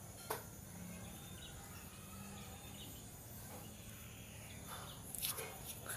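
Faint outdoor background with insects and birds chirping, and a light click about a third of a second in, with a few more faint clicks near the end.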